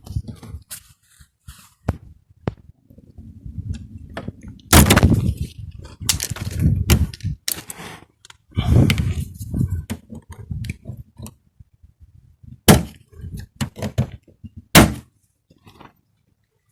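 Plastic door-handle trim being prised and pulled off a BMW car door: about five sharp cracks and knocks, with scraping and rubbing between them.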